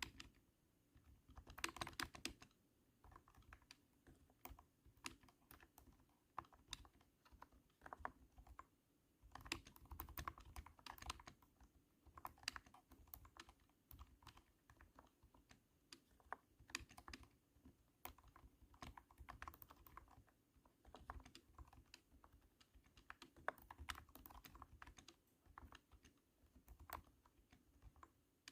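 Typing on a cat-shaped keyboard: rapid thunky keystrokes in bursts of a second or two, broken by brief pauses.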